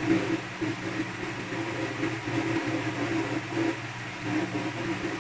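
Steady low machine hum with a wavering drone, like a motor-driven appliance running.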